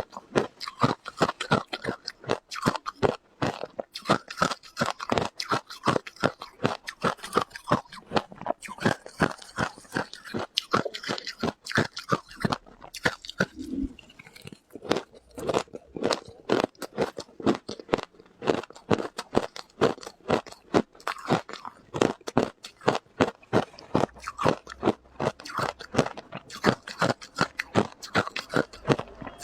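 Close-miked chewing of hard ice: a steady run of loud crunches, several a second, with a brief pause a little before halfway.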